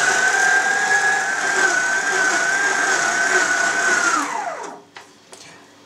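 FIRST stand mixer's motor running with a steady high whine as its beater kneads a heavy batch of coarse sausage mince. It is switched off about four seconds in, and the whine drops away as the motor winds down.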